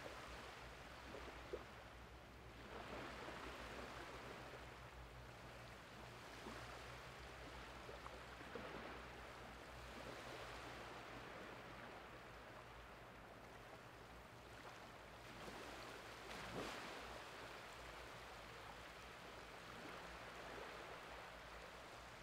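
Small, shallow waves washing softly over a flat sandy beach as the tide comes in: a faint, steady wash that swells gently every few seconds.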